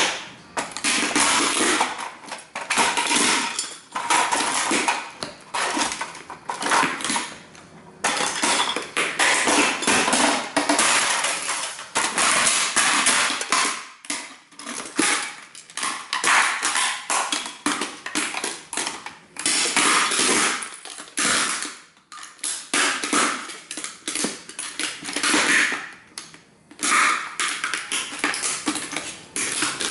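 Cowboy boots stomping on and grinding a model train house: repeated crunching, cracking and clattering of breaking thin wood and plastic pieces on a cloth-covered wooden floor, in bouts with short pauses between them.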